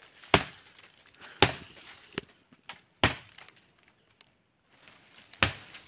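A blade chopping into woody brush: about five sharp strikes at uneven intervals, roughly one a second, with a pause of about two seconds before the last one.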